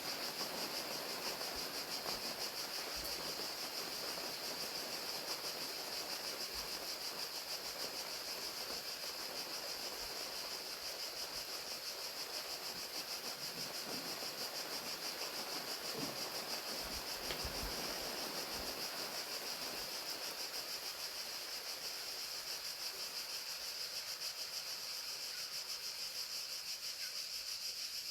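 Crickets chirping steadily in a high, finely pulsing chorus over a steady patter of rain.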